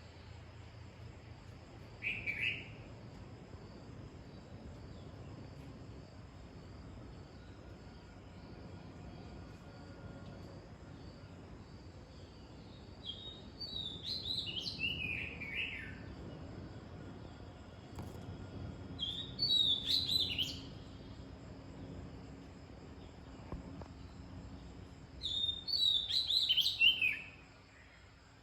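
A songbird singing: a short call about two seconds in, then three phrases that each tumble downward in pitch over two or three seconds, repeated about every six seconds. A faint steady high-pitched insect drone runs underneath.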